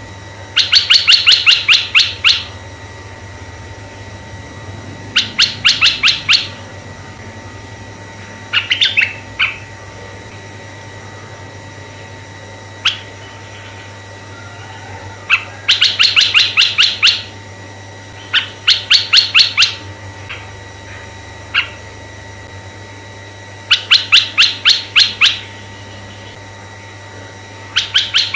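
Asian red-eyed bulbul calling: loud bursts of rapid, sharp chattering notes, each burst about a second long, repeated every few seconds over a faint steady hum.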